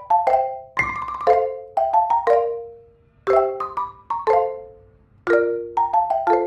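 Background music: a light tune of short struck notes, some played as chords, each dying away quickly, with brief pauses about three and five seconds in.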